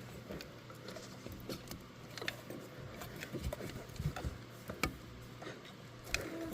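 Light, irregular clicks and small knocks of hands working a SharkBite fitting and clamps on a rubber radiator hose, with a sharper click near the end.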